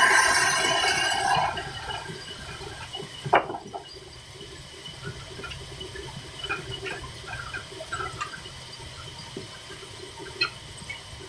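Band saw, driven by a Ruston Hornsby diesel engine, finishing a cut through a wooden plank: a loud hissing rasp that stops about a second and a half in. After that the saw runs free over the engine's steady low rumble, with one sharp knock about three seconds in and faint short bird chirps.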